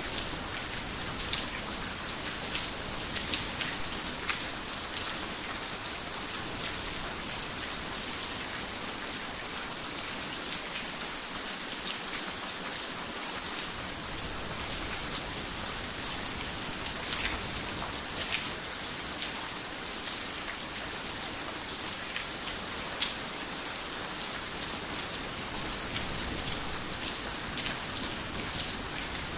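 Heavy rain falling steadily, with many sharp individual drops striking a surface.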